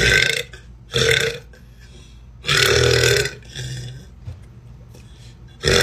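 A woman belching deep burps in a row: two short ones about a second apart, then a longer drawn-out one, and another starting near the end.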